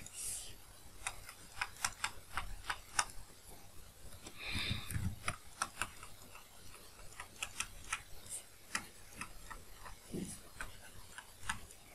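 Faint, irregular clicks and taps of a stylus on a tablet screen as words are handwritten, a few clicks a second.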